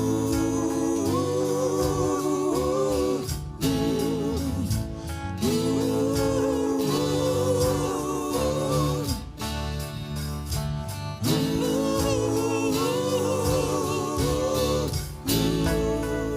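A live band, with bass guitar, guitar and drums, plays a passage without lyrics. Over it a held, wavering melody in several parallel lines comes in phrases of about three to four seconds.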